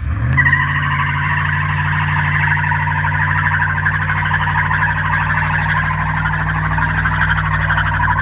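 Dodge Durango engine revving up sharply at the start and then held at steady high revs, with a loud rasping noise running over it.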